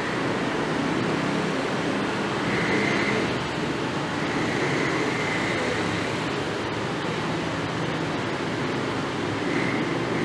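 Steady rumbling hiss of classroom background noise, with no single clear event.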